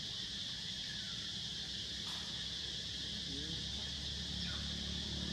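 Steady high-pitched insect chorus droning without a break, over a low steady hum.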